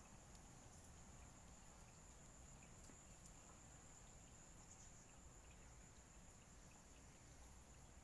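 Faint, steady high-pitched trill of night insects such as crickets, unbroken throughout, with a few faint ticks.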